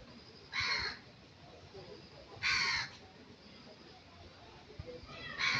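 A crow cawing three times, about two seconds apart, each caw short and harsh.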